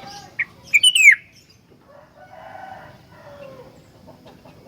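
Sooty-headed bulbul calling: a short high note, then a loud burst of sharp falling whistles about a second in, followed by softer, lower drawn-out notes.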